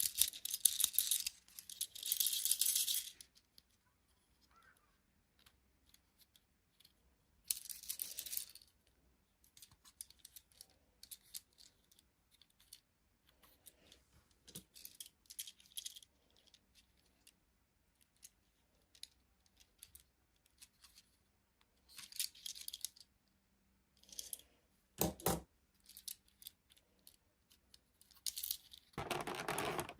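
Toy packaging and small plastic toy parts being handled: intermittent crinkling and rattling with scattered small clicks, and a sharp knock about 25 seconds in.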